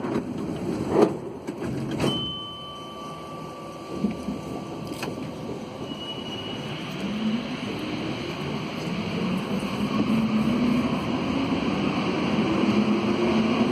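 Alsthom NS 74 rubber-tyred metro train departing: the doors shut with a knock and click in the first two seconds, a steady high tone sounds for a few seconds, then the electric traction motors whine, rising in pitch and getting louder as the train pulls away and gathers speed.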